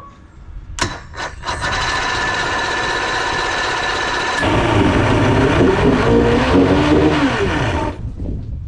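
A 1976 Johnson 135 hp two-stroke outboard motor catching after a few sharp clicks and running steadily, then louder with a wavering pitch about halfway through. The sound cuts off abruptly near the end.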